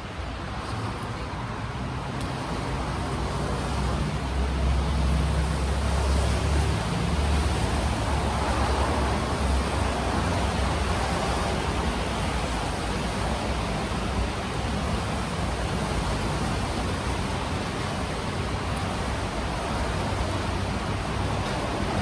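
Road traffic noise in the rain: a steady hiss of tyres on wet road, with a low vehicle rumble that builds over the first few seconds and is strongest about five to seven seconds in.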